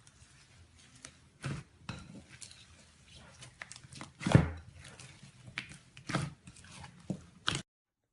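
Slime being squeezed and poked by hand: irregular wet pops and squelches, the loudest about four seconds in. The sound cuts off suddenly near the end.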